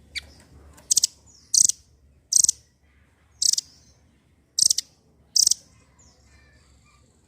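Nuthatch giving a run of loud, very short, high chirps, about one a second with some given in quick pairs, then fainter twittering near the end.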